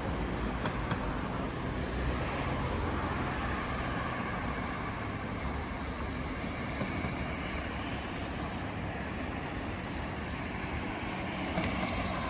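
Street traffic: cars going by, with a steady rush of engines and tyres on the road.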